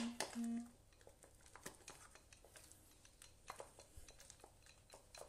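Wooden spoon beating choux pastry dough in a glass bowl: soft, irregular scrapes, taps and squelches as the egg is worked into the paste.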